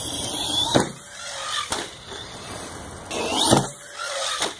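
Traxxas Slash 4x4 RC truck's electric motor whining under throttle, its pitch climbing sharply about three seconds in, with sharp knocks about a second in and again near three and a half seconds as the truck strikes the jump and lands.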